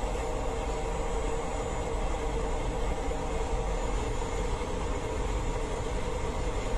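Steady rumble and rushing noise of the Bloodhound jet car heard from on board as it rolls and slows down from high speed.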